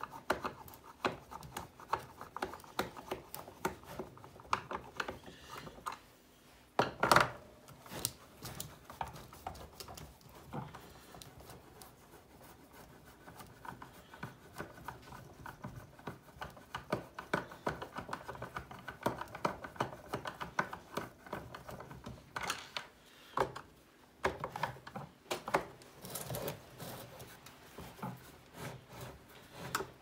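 Screwdriver turning screws out of a plastic vacuum cleaner housing: a steady run of small scraping ticks and clicks, with a few louder knocks, the loudest about seven seconds in.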